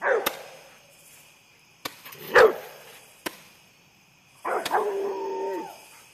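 A dog barking loudly at fireworks, with a longer drawn-out cry a little after four seconds in, among a few sharp pops from small fireworks.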